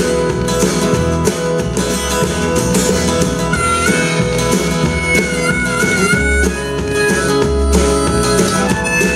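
Instrumental music played through Kenwood LS-F4 three-way bookshelf speakers: guitar accompaniment with a steady beat, and a held, wavering lead melody entering about three and a half seconds in.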